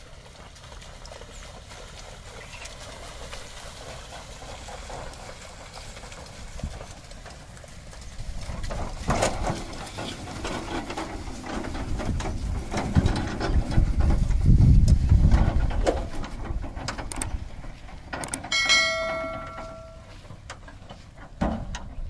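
Bullock cart on the move: hoof steps and the rattle of a steel-bodied cart on rubber tyres, getting louder from about a third of the way in with a low rumble as the cart passes close by. A short ringing tone sounds briefly near the end.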